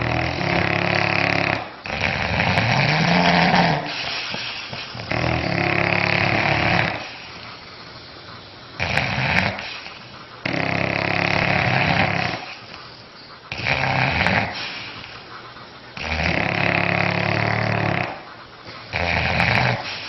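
Sleeping English bulldogs snoring loudly: raspy snores of one to two seconds each, coming in a regular rhythm about every two and a half seconds with quieter breaths between.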